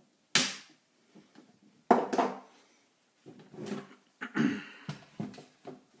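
A laptop's plastic case clicks and knocks as its snap clips are pried loose with a flathead blade. There is one sharp loud click, a second about a second and a half later, then a run of lighter knocks and handling clatter as the laptop is turned over onto a wooden table.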